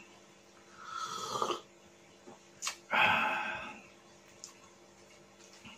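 A man slurping coffee from a small glass cup, then a louder breathy exhale about three seconds in, with a sharp click just before it.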